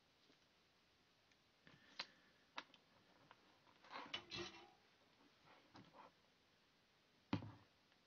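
Near silence with a few faint clicks and taps from things being handled on a workbench, a short rustle about four seconds in, and a soft thump near the end.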